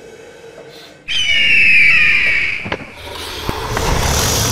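Animated dragon sound effects: a sudden shrill screech about a second in, sliding slightly down in pitch, followed by a building rush of fire breath toward the end, with a few sharp crackles in it.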